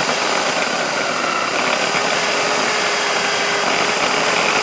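Homemade mixer grinder driven by an electric drill motor, running steadily as its mixer jar grinds coconut pieces, with a constant whine.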